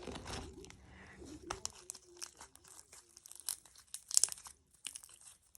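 Crunchy homemade slime being squeezed and worked by hand, giving off irregular crackling, crunching pops.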